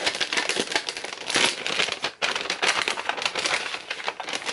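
Gift-wrapping paper crinkling and rustling in a busy run of crackles as it is handled and worked loose from a box, with a short pause about two seconds in.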